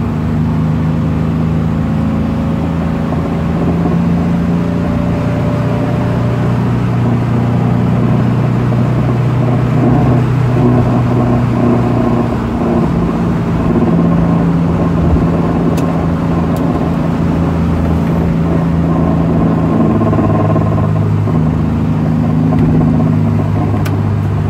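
Toyota Corolla KE20's four-cylinder engine running, its pitch shifting up and down several times, with the rattle the car is being checked for.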